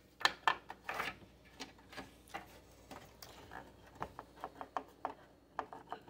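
Irregular clicks and knocks from hands working a desktop PC's motherboard loose inside its case, the loudest few in the first second.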